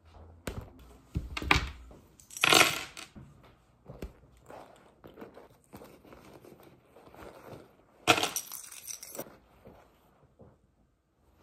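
Handling of a tan leather shoulder bag as a wallet and other small items are moved into it: rustling, knocks and small metallic clinks, with louder bursts about two and a half seconds in and again around eight seconds.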